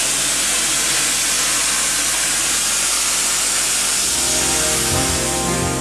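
Torchmate CNC plasma cutter's torch cutting steel plate: a loud, steady hiss of the plasma arc and its air jet. Music comes in under it about four seconds in.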